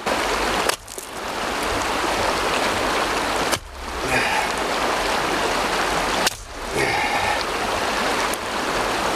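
Steady rush of river water, loud and even, dropping away briefly three times.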